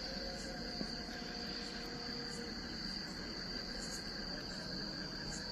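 Crickets calling in a steady, unbroken high-pitched chorus.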